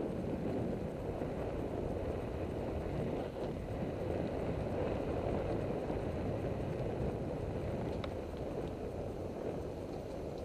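Bicycle rolling over a dirt-and-gravel road: tyre crunch and the rattle of the bike and helmet camera over the bumps, mixed with wind rumble on the camera's microphone. One faint click about eight seconds in.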